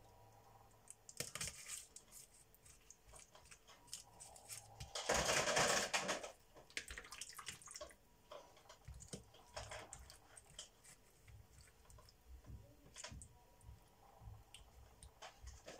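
Kitchen handling sounds as raw prawns are laid on a parchment-lined baking tray among pieces of seabass: scattered small clicks and rustles, with a brief louder rush of noise about five seconds in.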